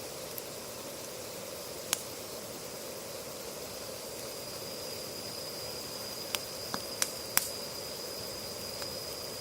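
Wood campfire crackling, with sharp pops about two seconds in and a quick cluster of them between six and seven and a half seconds in, over a steady hiss. A steady high thin tone grows stronger from about halfway.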